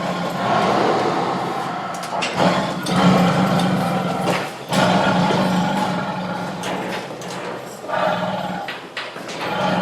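Tiger roaring in a string of long, rough roars, each about two to three seconds long, one following straight after another.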